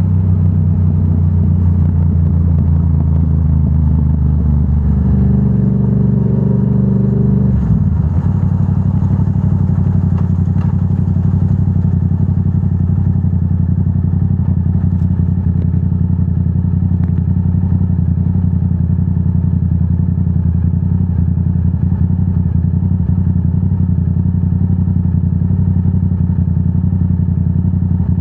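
Yamaha R7's 689 cc parallel-twin engine running through a Yoshimura AT2 full exhaust, recorded on board. The engine note steps down about eight seconds in, then holds steady.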